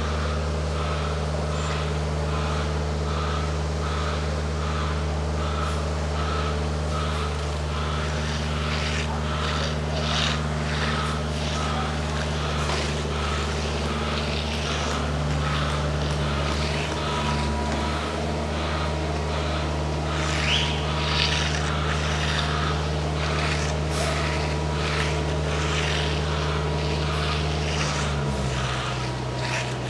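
Heavy diesel construction machinery running steadily at a concrete pour, with a faint high pulse repeating a little more than once a second and scattered scraping. Near the end the engine note drops lower.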